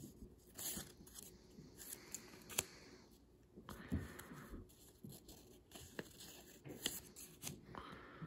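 Paper rustling and crinkling as small handmade paper booklets are shuffled and leafed through by hand, with several short rustles and a few sharp ticks.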